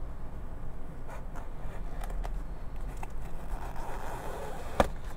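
A small blade cutting through the label seal on a cardboard box: faint scratches and light clicks, a soft scraping stretch about four seconds in, and a sharp click near the end, over a low steady hum.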